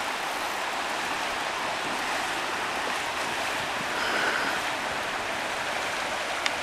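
River water rushing steadily over rapids, an even wash of noise.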